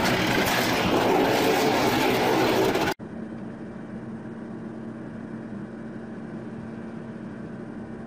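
A John Deere 1050 crawler bulldozer running loud and noisy as it drives over a car. About three seconds in this cuts off sharply to a much quieter steady engine hum with a low steady tone, from a semi-truck raising its end-dump trailer.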